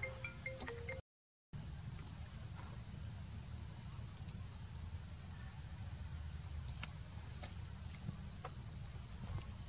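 Steady high-pitched drone of insects such as crickets or cicadas, over a low rumble. The sound cuts out completely for about half a second about a second in, and there are a few faint clicks near the end.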